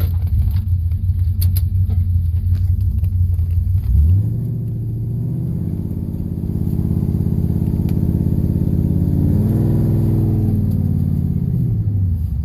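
Ford Mustang's 4.6 V8 engine rumbling at low revs while driving. About four seconds in, its note climbs steadily as the car accelerates, then drops back near the end as it eases off.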